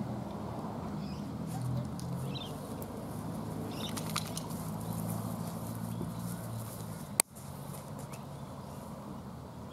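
Outdoor background sound: a steady low hum with a few faint bird chirps. About seven seconds in a sharp click and a brief dropout mark a cut in the recording, after which the hum is gone.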